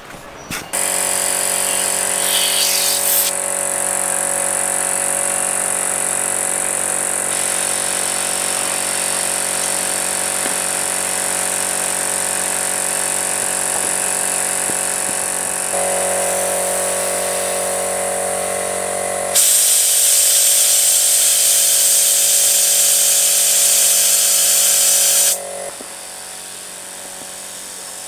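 Small electric air pump running steadily, its motor humming under a strong rush of air as it inflates a large inner tube and pool floats. The hiss of air grows louder for several seconds near the end, then drops away.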